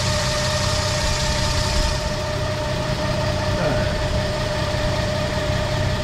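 A four-wheel drive's engine idling steadily, with a constant thin tone over the low engine note.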